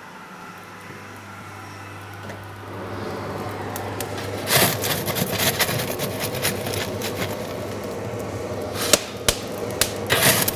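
Iron tool scraping and clinking in the coals of a blacksmith's coal forge as the fire is raked, over a steady background rush that swells over the first few seconds. The sharp clinks and scrapes start about four and a half seconds in and come in clusters, loudest near the end.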